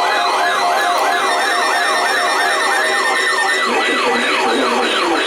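Electronic siren wailing in quick falling sweeps, about three a second and slowing toward the end, with a second, lower siren joining about four seconds in, ahead of a broadcast warning.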